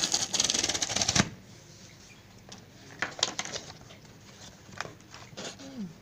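Perforated tear strip of a cardboard book-mailer being ripped open: a fast, loud run of crackling ticks for about a second, then a few scattered clicks and rustles of the cardboard flap.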